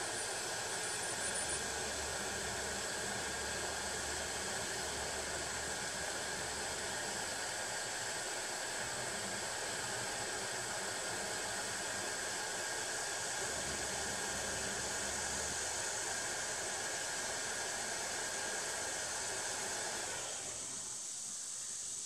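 Steady rushing hiss of an air blower running, with a faint high whine, that cuts off suddenly about twenty seconds in. A low hum comes in twice beneath it.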